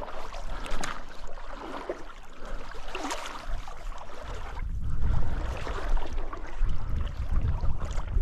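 Stream water running and splashing, with a low rumble that grows heavier about halfway through.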